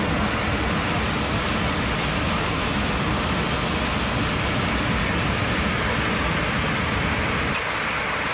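Steady loud rushing roar of air and engine noise inside an airliner cabin whose oxygen masks have dropped, the sign of a loss of cabin pressure. The deep rumble eases off near the end.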